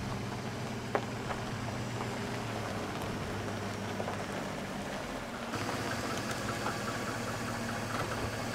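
The 5.3-litre V8 of a Chevrolet Silverado 1500 running at a slow crawl while towing a travel trailer, a steady low engine hum that grows slightly louder and brighter about halfway through as the truck comes close.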